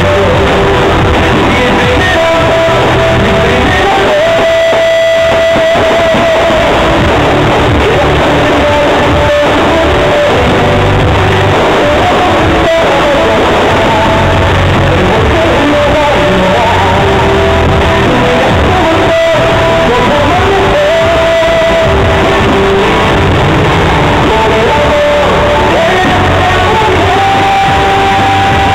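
Loud, continuous music from a pyromusical fireworks show, with long held melody notes over a dense backing. Two sharp firework bangs cut through it, near the middle and again about two-thirds of the way in.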